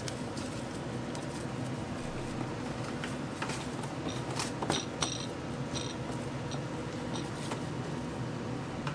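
Food-preparation sounds over a steady kitchen background: scattered light clicks and clinks of utensils.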